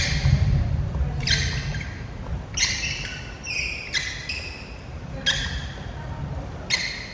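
Badminton rackets striking shuttlecocks in a steady drill rhythm, a sharp hit about every 1.3 seconds, with sneakers squeaking on the court floor.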